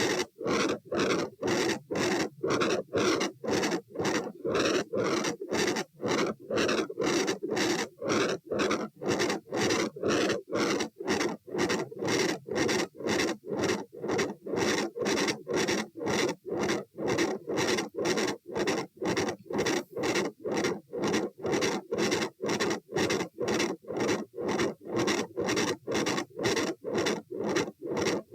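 Heart sounds recorded over the aortic area, with a very loud murmur filling most of each beat. The beats come evenly at about two a second, 120 beats per minute, each separated from the next by a brief quiet gap.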